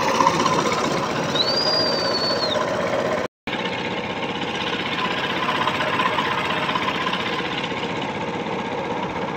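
Petrol engine of a river passenger boat running steadily under way, a dense chugging drone. A short high whistle rises and falls about a second in, and the sound cuts out for a moment a little after three seconds.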